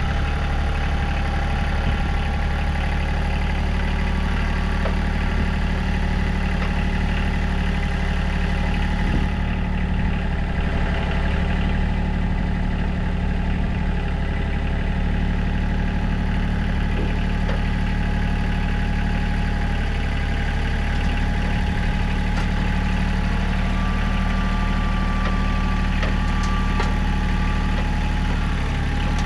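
Kubota diesel engine of compact heavy equipment running at a steady speed, close up, with no change in pitch or load.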